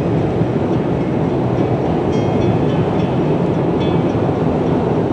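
Steady road and engine noise inside a car cabin at motorway speed: a constant low rumble.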